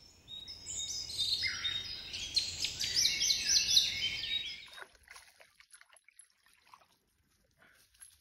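Songbirds singing, a dense run of quick, repeated whistled phrases over a low hum of outdoor background noise. The song stops about five seconds in, leaving only faint scattered ticks.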